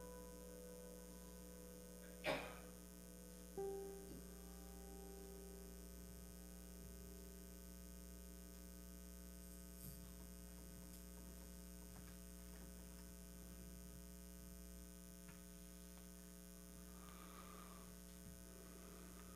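Near silence with a steady electrical mains hum. In the first few seconds the last notes of a piece of music ring out and fade.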